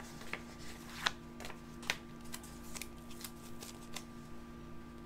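Paper and sticker sheets being handled: light rustling and small ticks, with two sharper ticks about one and two seconds in and a quick run of small ticks after.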